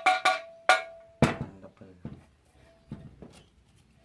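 Metal parts or tools clinking and knocking while being handled. About four quick ringing clinks come in the first second, then a heavier thunk and a few softer knocks.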